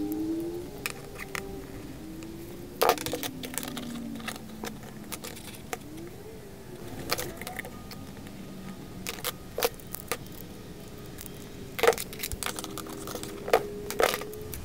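Scattered metallic clicks and clinks as a new brake line is worked in a hand tube bender and handled, over faint wavering tones.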